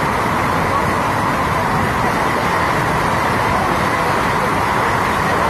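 Flash-flood torrent of muddy water rushing and cascading down a channel: a loud, steady rushing roar.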